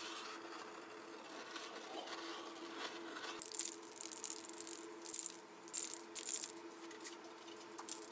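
Small metal parts clinking and rattling in quick clusters, most of them in the second half, over a faint steady hum.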